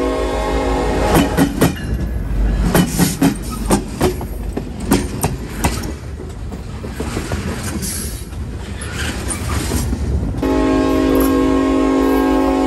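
Approaching freight train's locomotive horn sounding a steady chord, which breaks off about half a second in. A run of sharp clacks and knocks over a low rumble follows, and the horn sounds again about ten seconds in.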